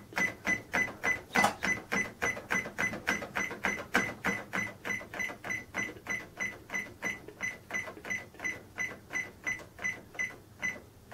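Casio SE-S400 cash register's 7 key pressed over and over, about three times a second, each press giving a click and a short beep. This is the key being pressed some three dozen times to step through characters to the pound symbol while programming the currency symbol.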